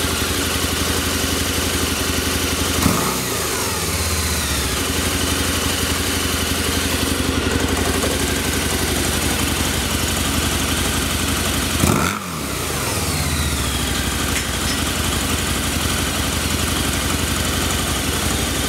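Harley-Davidson V-Rod's liquid-cooled 60-degree V-twin idling steadily, blipped twice with quick throttle revs that rise and fall back to idle, about three seconds in and about twelve seconds in.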